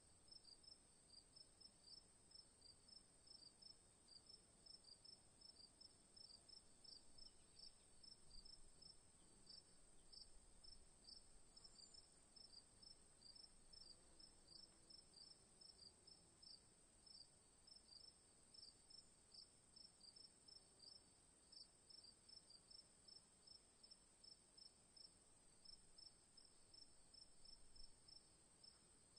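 Crickets chirping faintly in a steady, even rhythm of short high chirps, about two to three a second, over a constant high-pitched hiss.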